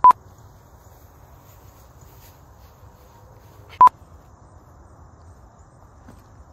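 Two short, loud electronic beeps at one steady pitch, one at the start and one nearly four seconds later, over a faint steady background of crickets.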